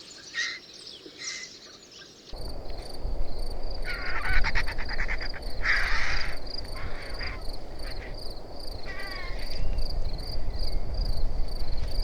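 Short repeated bird chirps, then an abrupt cut about two seconds in to an outdoor recording. It has wind rumble on the microphone, a steady pulsing insect chirp about three times a second, and several harsh, rasping bird calls.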